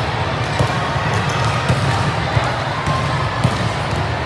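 Gym crowd at a youth volleyball match: steady chatter of many voices, with a few sharp ball thumps standing out from it, about four in all.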